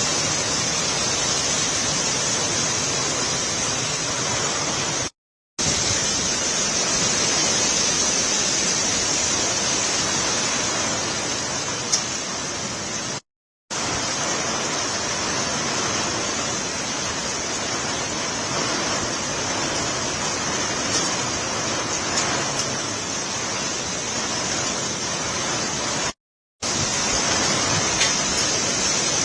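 Heavy rain pouring down in a steady hiss, with gusty wind. The sound cuts out completely for a moment three times, about five, thirteen and twenty-six seconds in.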